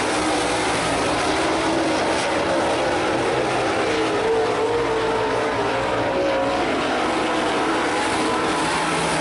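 A field of Super Late Model dirt track race cars running on the track, their V8 engines at high revs. Several engine notes overlap, their pitch rising and falling as the cars come and go.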